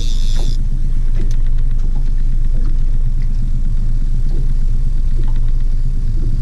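Small outboard motor running steadily at trolling speed: an even, low rumble.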